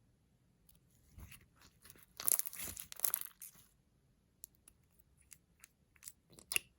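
Dry crunching and scraping for about a second and a half, then a string of short, sharp crackles and clicks, from makeup products being broken up and worked into slime.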